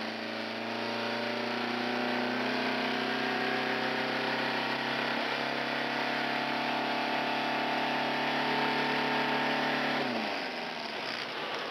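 Sterndrive motorboat engine running steadily under way. About ten seconds in its pitch falls as the throttle is eased back.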